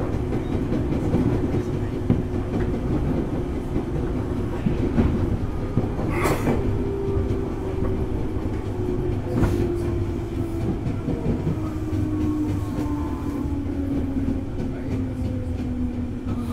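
JR East 205 series electric train running, heard from inside the car: steady wheel and track rumble with a motor hum that falls slowly in pitch as the train slows, and a couple of sharp knocks from the track.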